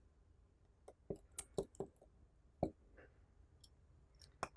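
Faint, scattered clicks and small metallic clinks of a precision screwdriver and a tiny screw against the metal back plate of an iPhone 6s LCD assembly, about ten in all, the loudest near the end.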